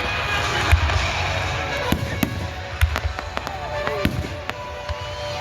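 Fireworks going off: a string of sharp, irregular bangs and crackles, with a falling whistle about four seconds in. Music plays in the background.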